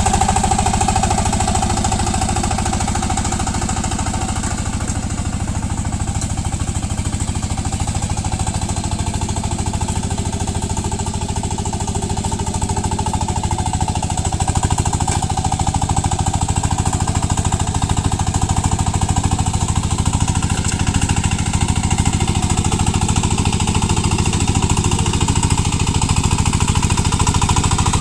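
VST power tiller's single-cylinder diesel engine running steadily with a rapid chugging beat as the machine works through the mud.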